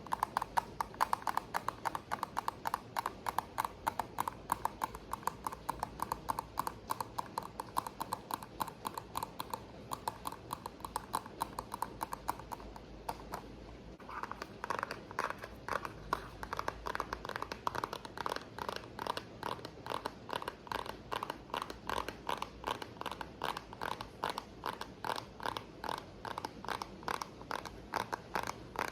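Rapid, steady tapping on a hard object, several taps a second, with a brief pause about 13 seconds in before it resumes, over a faint steady rain background.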